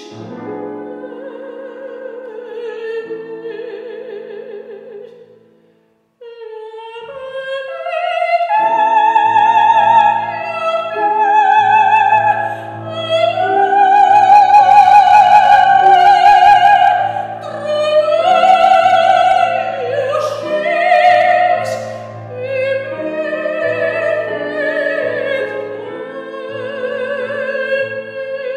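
A woman singing a classical art song in Russian, operatically and with vibrato, accompanied by a grand piano. About six seconds in, the music stops briefly. It then builds to a loud climax in the middle and eases off toward the end.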